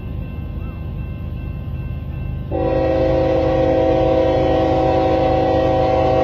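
Canadian National freight locomotive's air horn sounding one long chord that starts abruptly about two and a half seconds in, over a steady low rumble. It is the train's warning as it nears the grade crossing.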